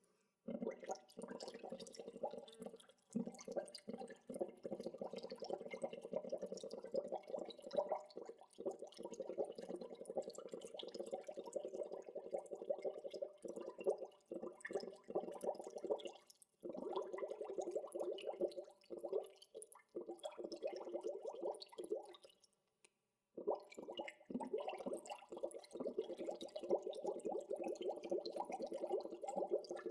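Gentle bubbling water: a dense, steady stream of small bubbles rising and popping. It breaks off briefly a few times, once for about a second near the three-quarter mark.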